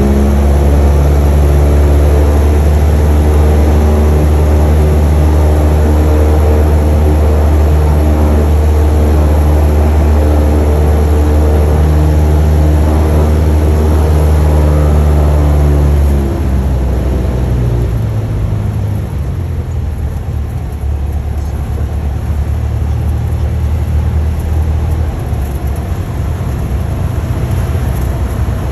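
Cessna 172's piston engine and propeller heard from inside the cabin, running at a steady approach power. About sixteen seconds in the power comes back to idle for the landing: the note drops suddenly to a quieter, lower hum through the touchdown and rollout.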